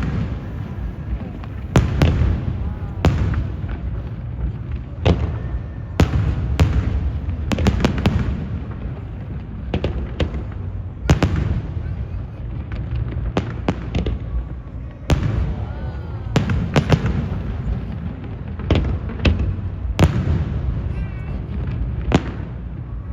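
Fireworks show: repeated sharp aerial shell bursts, one after another every second or so, over a steady low rumble and crowd noise.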